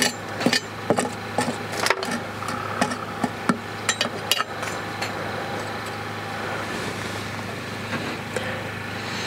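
Metal tongs clicking and charcoal briquettes clunking on the cast-iron lid of a camp Dutch oven as coals are added and arranged. There is a run of sharp clicks and knocks for the first four seconds or so, then only a steady rushing noise.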